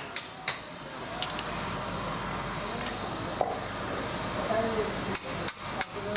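Hammer blows on steel: a few strikes at the start, a pause of several seconds, then a quick run of about five blows near the end.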